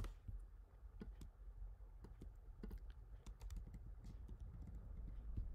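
Scattered, irregular clicks of a computer keyboard and mouse while objects are dragged in a drawing program, over a faint low steady hum.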